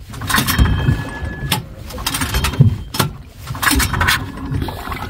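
Choppy seawater slapping against the hull of a small fiberglass boat, with irregular sharp knocks and splashes over a low rumbling wash.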